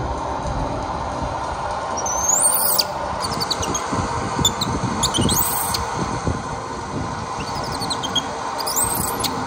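Baby monkey squealing three times in short, high-pitched cries that waver in pitch, a few seconds apart, over a steady rushing background noise.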